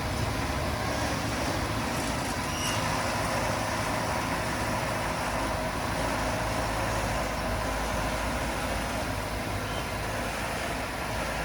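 Heavy diesel engine of earthmoving equipment running steadily, with no clear revving or stops.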